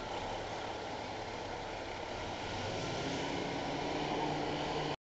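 Heavy fire-rescue truck's diesel engine running at low speed as the truck manoeuvres at the station, its note rising slightly about halfway through. The sound drops out abruptly just before the end.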